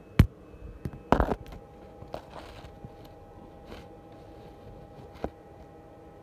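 Hand tools working on bolts in a car's engine bay: a few separate sharp clicks and knocks, with a short rattling scrape about a second in.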